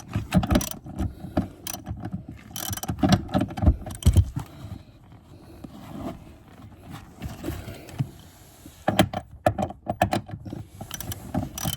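Hand ratchet and socket clicking and clanking against metal as a car seat's floor bolt is broken loose. The clicks come in irregular clusters, thinning out midway and picking up again near the end.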